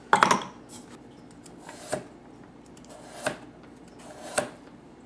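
Chef's knife slicing a carrot into thin rounds on a cutting board: three separate cuts, each a short crisp crunch and tap, about one every second and a half. Just before them comes a brief clatter, the loudest sound here, from handling the plastic food processor.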